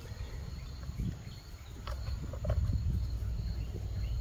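Wind buffeting the microphone, a low rumble that strengthens about halfway through, with a faint steady high insect trill above it and a couple of small handling clicks.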